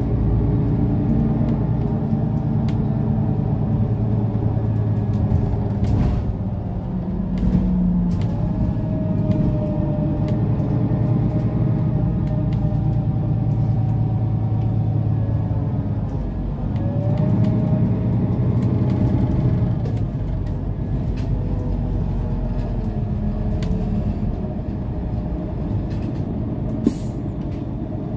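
Mercedes-Benz O530 Citaro Facelift city bus heard from inside the passenger saloon on the move: a steady diesel drone whose engine note climbs, drops about halfway through and climbs again as the bus changes speed. A single sharp click near the end.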